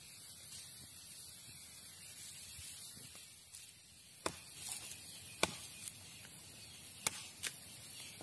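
Machete blade chopping into a wooden stick held upright on the ground: several sharp, short knocks in the second half, roughly a second apart.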